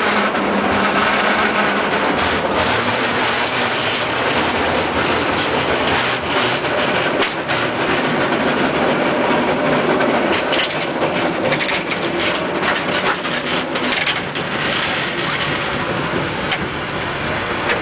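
San Francisco cable car moving along its track: a steady rattling run with many sharp clicks and clacks, thickest in the middle stretch.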